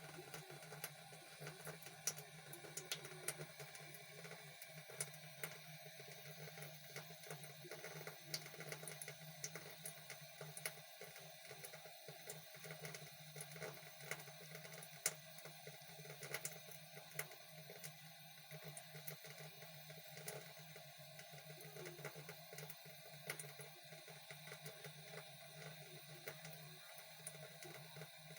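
Faint thin stream of tap water running steadily into a sink, with many small irregular splashing ticks over a low steady hum.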